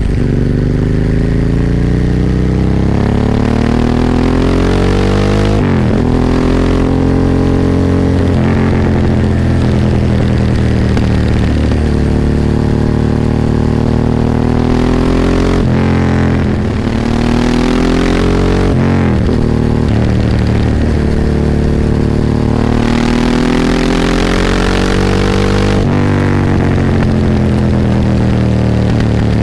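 Ducati 998's L-twin engine heard onboard while riding. It pulls up through the revs again and again, and the pitch drops sharply at each of several gear changes.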